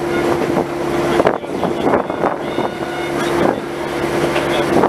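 Diesel locomotive running as it rolls along the track, heard from on board, with a steady hum, scattered clicks and knocks, and wind on the microphone.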